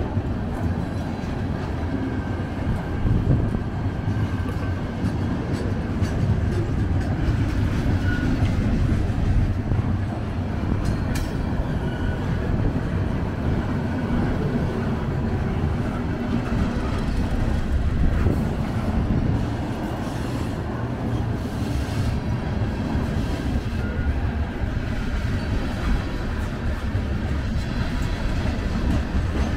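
Freight train of CN covered hopper cars rolling past at a level crossing: a steady, loud rumble of steel wheels on rail, with occasional clanks and brief faint squeals.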